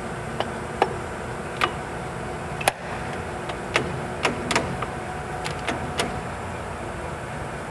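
Sharp metal clicks and clunks, about a dozen at irregular intervals, from the engine lathe's carriage apron levers and handwheel being worked by hand. Steady machine noise underneath.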